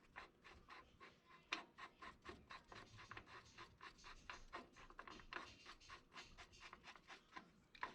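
Faint rapid clicking and scraping, a few clicks a second: the star-wheel adjuster on a 1988 Ford Ranger's rear drum brake being turned to move the shoes in and out.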